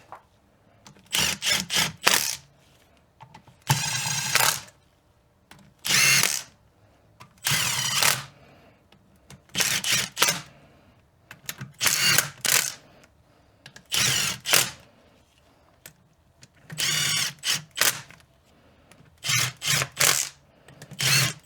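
Small Milwaukee cordless power tool running the differential cover bolts down in short bursts, about one every two seconds, each a brief motor whine, until the bolts are snug.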